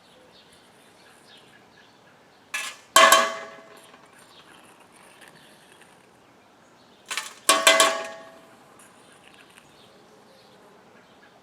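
Metal skimming tool knocked hard against metal twice, each time a light knock then a loud ringing clang, typical of shaking dross off the skimmer while cleaning a brass melt.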